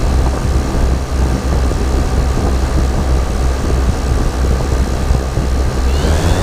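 Cessna light aircraft's engine and propeller running with a steady low drone.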